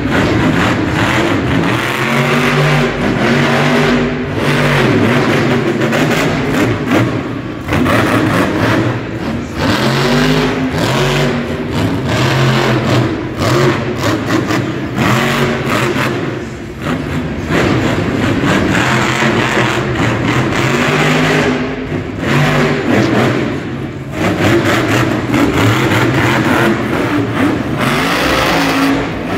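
Monster truck's supercharged V8 engine revving hard again and again, its pitch climbing and falling repeatedly as the truck drives and wheelies across the dirt.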